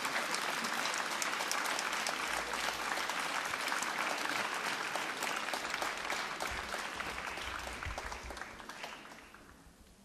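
Audience applauding, steady for several seconds and then dying away over the last few seconds.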